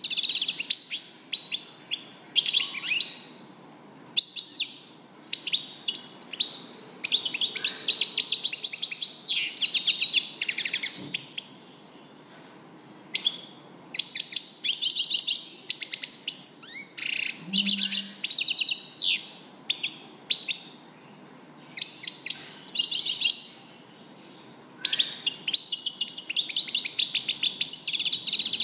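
European goldfinch singing: rapid, high-pitched twittering phrases in repeated bursts, each from a fraction of a second to a few seconds long, with short pauses between them.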